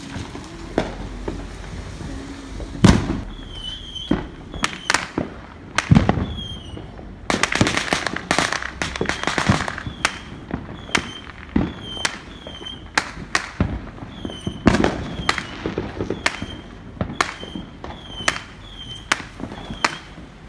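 Fireworks going off: a string of sharp bangs, roughly one a second, with a dense crackling burst about seven to ten seconds in.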